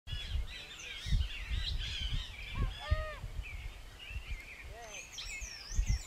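Several wild birds calling at once: many high chirps and twitters throughout, with a few lower, arching calls about halfway through and again near the end, over irregular low thumps.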